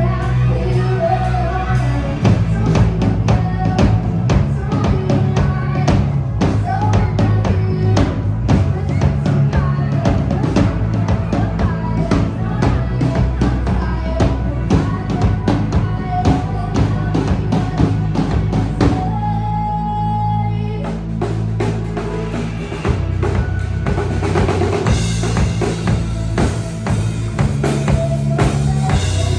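Live band playing, drum kit to the fore with bass drum and snare driving a steady beat. About twenty seconds in the drums drop out for a couple of seconds under a single held note, then come back in.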